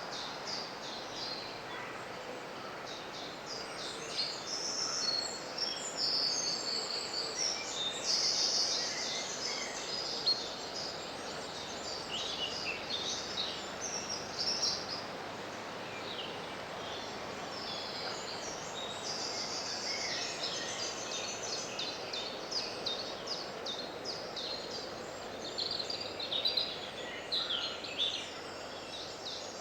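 Several woodland birds singing and calling, with short high notes coming thickest about a quarter of the way in and again near the end, over the steady rush of a gentle stream.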